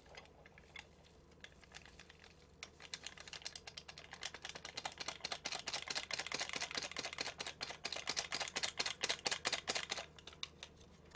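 Instant-noodle seasoning sachet crinkling and crackling in rapid small clicks as it is squeezed and scraped out over the noodle cup. The crackles start sparsely, thicken after a few seconds and stop near the end.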